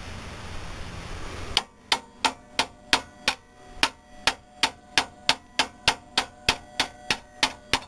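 Hammer striking metal on a 2003 Chevrolet Trailblazer's front suspension, a steady run of about twenty blows at roughly three a second, each with a short metallic ring, starting about a second and a half in.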